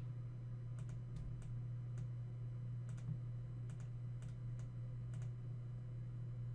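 Computer mouse clicking, about a dozen short clicks at irregular intervals, some in quick pairs, over a steady low hum.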